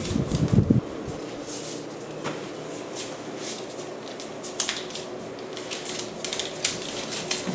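Doberman and pit bull scuffling in play on a hardwood floor: claws clicking and scraping on the wood in scattered short taps. In the first second there are a few loud, close thumps and rubbing.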